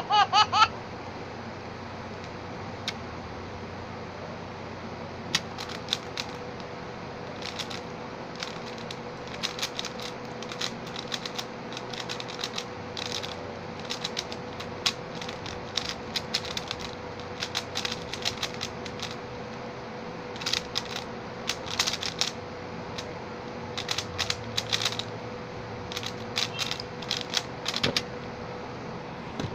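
Xin Lexin stickerless 3x3 speed cube being turned fast in a speedsolve: irregular runs of quick plastic clicks and clacks with short pauses between. Near the end a single duller knock as a hand comes down on the keyboard in front.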